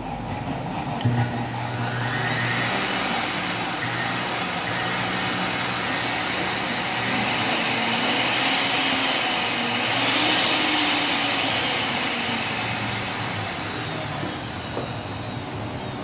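Wolf Gourmet blender motor running bare with no jar, in manual mode with the speed turned up. The sound builds over the first couple of seconds, is loudest about ten seconds in, then eases off toward the end.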